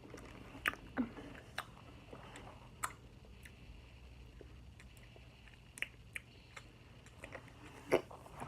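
Faint, scattered clicks and mouth noises of someone eating a Lemon Warheads sour hard candy.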